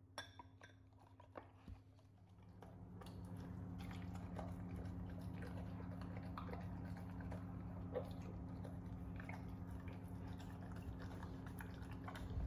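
Golden retriever eating soft shredded chicken and vegetables from a ceramic bowl: scattered chewing and lapping with a few sharp clicks, over a steady low hum that sets in about two seconds in.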